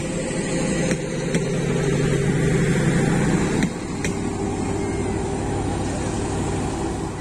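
Locomotive-hauled passenger coaches rolling past at close range: a steady rumble and hum from the train, broken by sharp clacks in pairs about half a second apart as the wheels cross rail joints.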